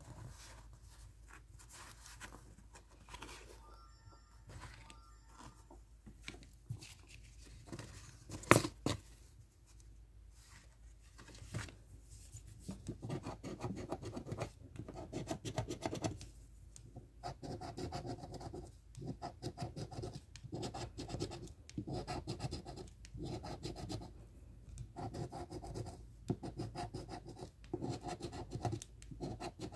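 A round scratching tool scraping the latex coating off a lottery scratch-off ticket in rapid repeated strokes, starting about twelve seconds in. Before that there is only light handling of the tickets, with one sharp knock partway through.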